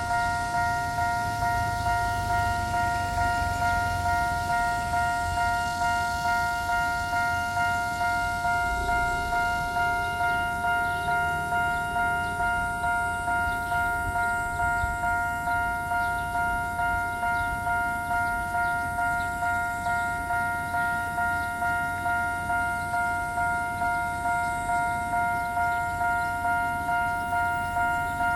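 Taiwan Railway level crossing warning bell ringing: the same bright chime is struck over and over in a steady, even rhythm, roughly one and a half strikes a second, each strike fading before the next. This is the crossing's special warning tone, sounding because a train is approaching.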